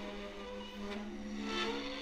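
Prepared viola played with the bow: a held low note with overtones. A burst of scratchy bow noise comes about a second and a half in, and a second note slides upward near the end.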